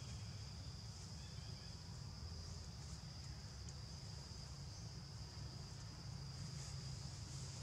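Steady high-pitched buzz of an insect chorus, unbroken throughout, over a low rumble.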